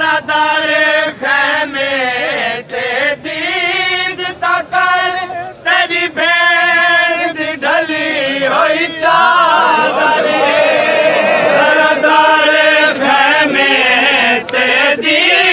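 Voices chanting a Saraiki noha, a mourning lament, in a long wavering melody with short pauses for breath.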